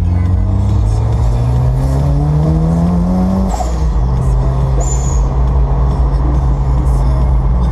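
1994 Toyota MR2 Turbo's turbocharged four-cylinder engine accelerating hard, its pitch climbing steadily for about three and a half seconds, then dropping at an upshift and holding steady as the car pulls on.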